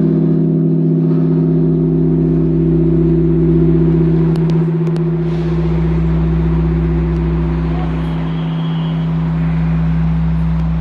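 Bosingak's great bronze bell ringing on after a strike, a deep humming tone with several higher tones above it. The hum swells and dips slowly. The higher tones die away about eight seconds in.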